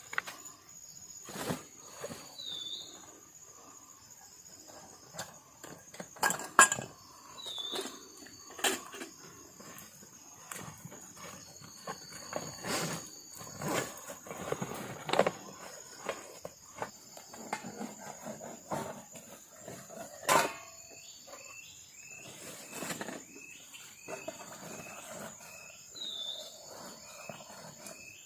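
A steady high-pitched insect drone from the forest, broken by many sharp knocks and rustles. Short chirping calls come now and then, with a run of them about twice a second near the end.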